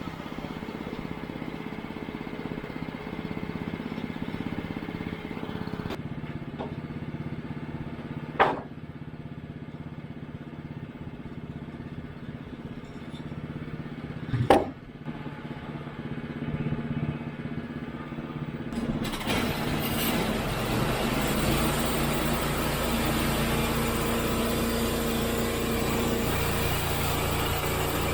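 Norwood HD36 portable band sawmill's engine running steadily, with two sharp knocks in the first half. From about two-thirds in, the band blade is cutting through the cant, adding a louder, rough sawing noise over the engine.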